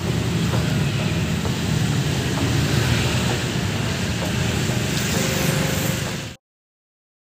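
Steady road and traffic noise from riding through city streets at night, with a strong low engine and tyre rumble. It cuts off suddenly a little over six seconds in.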